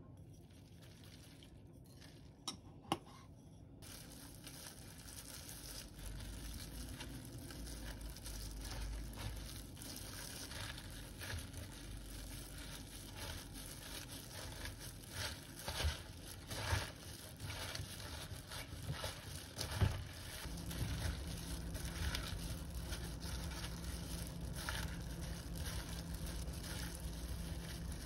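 Disposable plastic gloves crinkling and bomdong (spring cabbage) leaves rustling and squishing as gloved hands toss them with seasoning in a glass bowl, with many small sharp crackles and taps. Two sharp clicks come before the mixing starts, and a low steady hum joins about two-thirds through.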